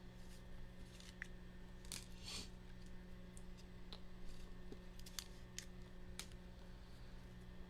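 Trading cards being handled and sorted on a table: scattered light clicks and taps, with a couple of brief sliding, rustling sounds about two seconds in, over a faint steady hum.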